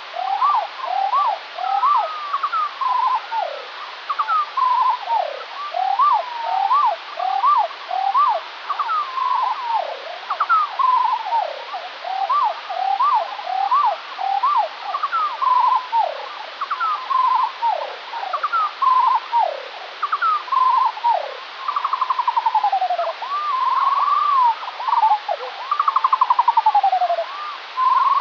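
Skylark song slowed to quarter speed, which drops it two octaves: a continuous stream of whistled notes that swoop up and down, about two a second, with a few buzzy, rattling notes near the end.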